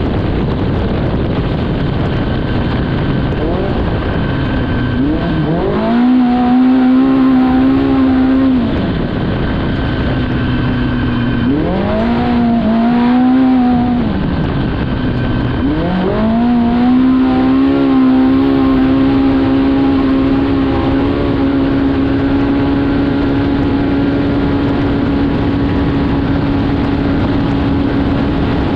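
Polaris Pro R race UTV's engine running hard. Its note drops and climbs back three times as the throttle is lifted and reapplied, then holds steady and high through the second half, over a constant rush of wind and tyre noise.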